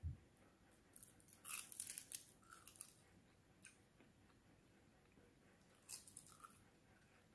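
Close-up chewing of a mouthful with crisp roasted seaweed: faint crunching in two bursts, one about a second in and a shorter one around six seconds, after a soft low thump at the start.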